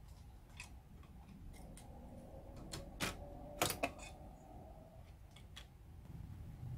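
VCR cassette housing, a sheet-metal and plastic loading carriage, being lifted off the tape mechanism: a series of faint clicks and light metal-and-plastic clatter, the sharpest knocks about three and three and a half seconds in.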